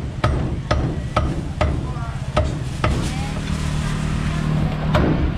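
A cleaver chopping fish on a wooden chopping block: sharp knocks about two a second, then a pause of about two seconds and one more chop near the end. A steady low hum can be heard during the pause.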